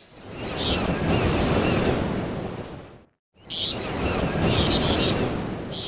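Steady rushing outdoor noise, like wind or surf, with high chirping on top; it cuts out completely for a moment about three seconds in, then resumes.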